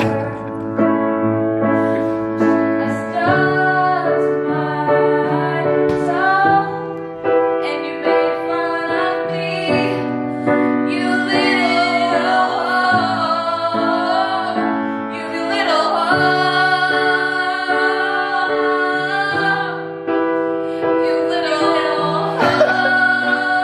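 A woman singing a slow song over piano chords she plays on a grand piano. The first few seconds are piano alone before the voice comes back in.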